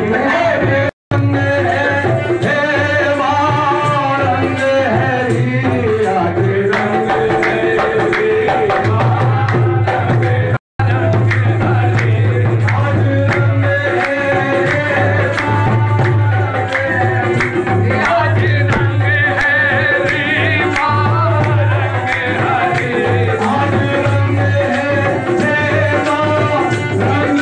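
Live qawwali-style devotional music: a man singing into a microphone over a harmonium and hand-drum accompaniment with a steady beat. The recording cuts out for a split second twice, about a second in and about ten seconds in.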